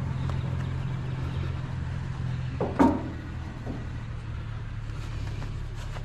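Vehicle engine idling with a steady low hum. A short, pitched squeak falling in pitch sounds about halfway through.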